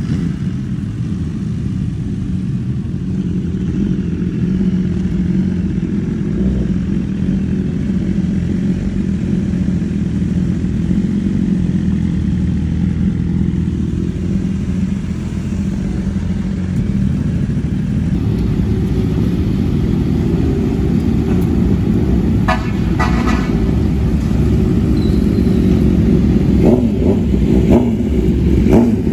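Sport motorcycle engines running steadily. A horn toots twice in quick succession about two-thirds of the way through, and there are short sharp engine blips near the end.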